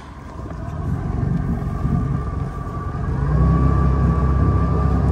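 Boat's outboard motor running as the boat gets under way. Its low drone builds over the first second or so, rises again about three seconds in and then holds steady, with a faint whine on top.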